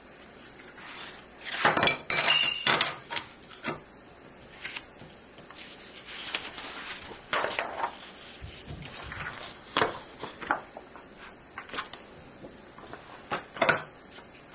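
A paper wall calendar being handled on a wooden table: sheets rustling and its wooden hanging bar knocking and clacking, in scattered bursts that are loudest about two seconds in.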